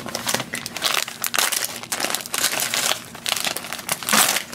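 A metallised foil blind bag crinkling and crackling as it is handled and pulled open by hand, loudest near the end.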